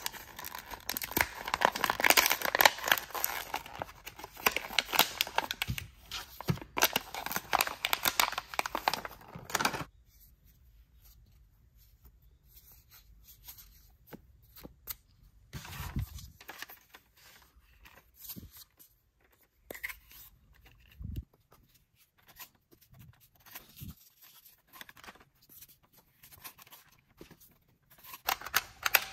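A paper sleeve of foam darts being torn open and crinkled for about ten seconds, with many small clicks. Quiet handling of the foam darts follows, with a few soft thumps. Near the end come sharp plastic clicks as a dart is pushed into the blaster's plastic cylinder.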